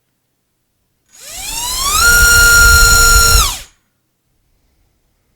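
ZMX Fusion X25 2206 2300 kV brushless motor spinning a DAL T5045 bullnose tri-blade propeller in a thrust test. It spools up with a sharply rising whine, holds a steady high-pitched full-throttle whine with prop wash for about a second and a half, then spools down quickly and stops.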